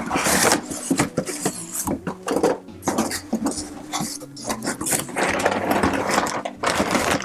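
Cardboard packaging being handled: flaps and an inner cardboard tray scraping and rustling against the box, with irregular knocks and crinkles. The scraping is heaviest at the start and again from about five seconds in.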